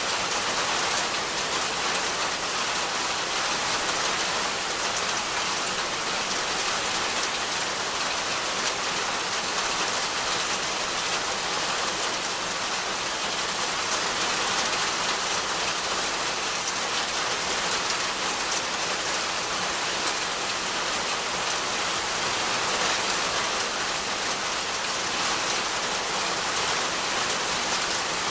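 Steady rain falling on the leaves of dense trees and undergrowth: an even hiss that holds at one level throughout.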